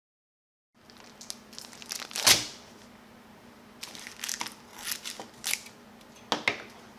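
Scissors snipping open a plastic bag of fresh rice noodles, the plastic crinkling and crackling as it is handled. The sounds start about a second in, with a sharp loud snap about two seconds in and a few more crinkles and snips after.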